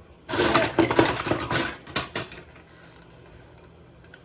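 Kitchen utensils and dishes clattering loudly for about two seconds, then it goes quiet.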